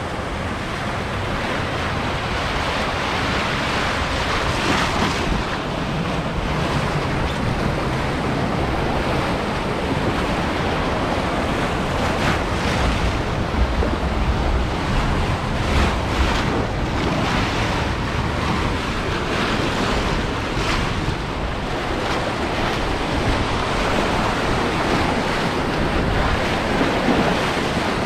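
Water rushing and churning around a river rapids raft, with wind on the microphone; a few sharper splashes stand out in the middle stretch.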